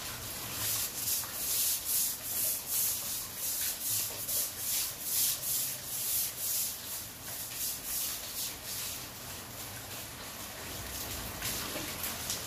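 Long-handled brush scrubbing wet concrete in quick back-and-forth strokes, about two a second, easing off in the last few seconds.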